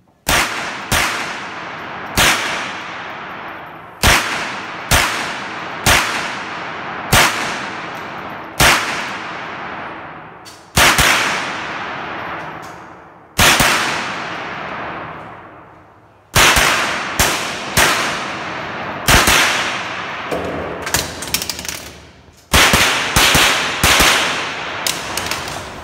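A .22 rimfire mini rifle firing a competition string of about thirty shots, each sharp crack ringing on with a long echo in an indoor range. Shots come singly, a second or two apart, then in quick strings near the end.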